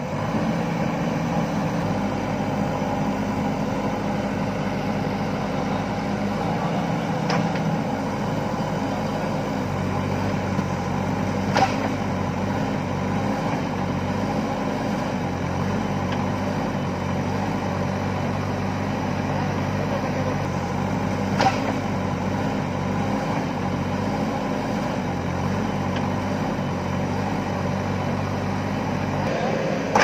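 JCB backhoe loader's diesel engine running steadily under working load, its note shifting twice as the hydraulics are worked. Three sharp knocks stand out, about seven, eleven and twenty-one seconds in.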